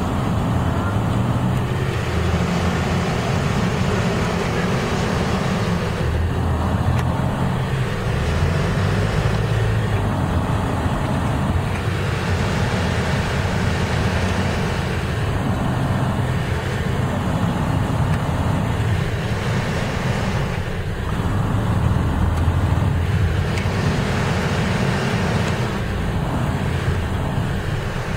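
Riding in a vehicle through dense city traffic: a steady low rumble of engine and road noise.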